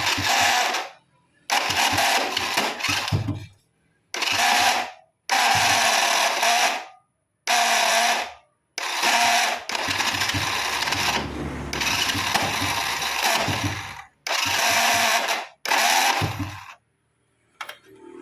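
Motorcycle electric starter motor cranking in repeated bursts of a second or two, with one longer run of about five seconds near the middle, making a loud growling grind ("ngorok"). The armature is rubbing against the field magnet because its bushing is worn and loose on the shaft.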